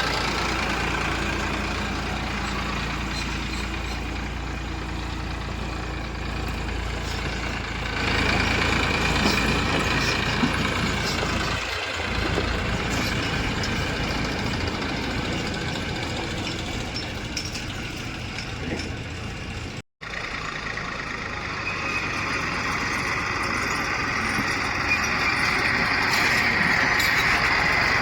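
Diesel engines of a JCB 3DX backhoe loader and tractors running steadily, getting louder about eight seconds in and again toward the end. The sound cuts out completely for a moment about twenty seconds in.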